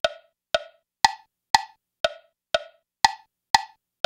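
REAPER metronome click track playing custom wood block samples at about two strikes a second. A higher-pitched accent sample and a lower click sample alternate in an accent–click–click–accent pattern.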